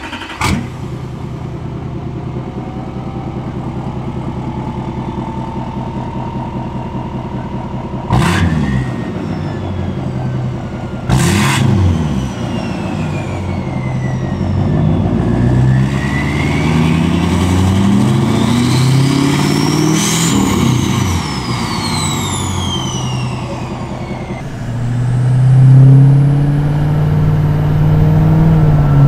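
L5P Duramax 6.6-litre V8 turbodiesel starting up, then idling and being revved several times, with the upgraded Stealth 64 turbocharger's whine rising and falling with the revs. Near the end the engine is heard from inside the cab while driving.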